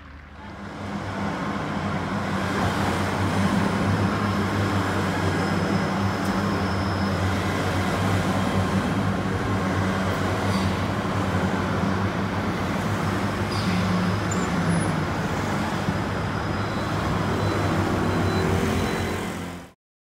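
City street traffic with an army Thales Hawkei light armoured vehicle driving past: a steady engine drone under tyre and road noise, cutting off suddenly near the end.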